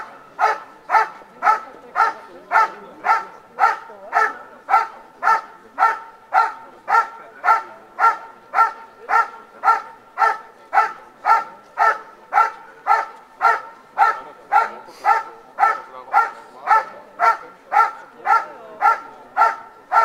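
A working dog barking steadily in an even rhythm of about two barks a second, each bark much like the last. This is the bark-and-hold of a protection trial: the dog is guarding the helper hidden in the blind.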